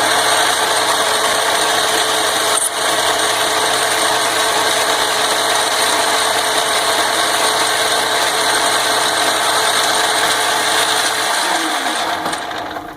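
Vintage Atlas lathe, driven by its single-phase Atlas motor through a belt and quick-change gearbox, running steadily through a light cutting pass of about ten thousandths on a slightly out-of-round part. A single click comes about two and a half seconds in, and near the end the machine is switched off, its hum falling in pitch as it spins down.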